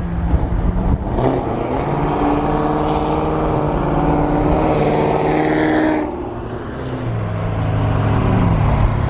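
Chevrolet SS's 6.2-litre V8 with a stage 3 cam, loud, accelerating hard for about five seconds with its pitch climbing. About six seconds in the throttle closes abruptly, and the engine drops back to a lower, steady run.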